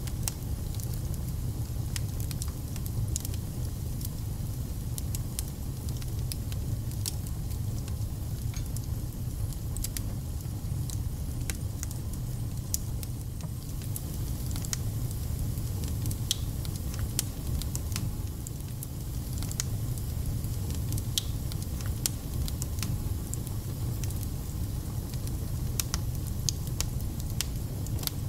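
Wood logs burning in a fireplace: a steady low rumble with frequent sharp crackles and pops scattered throughout.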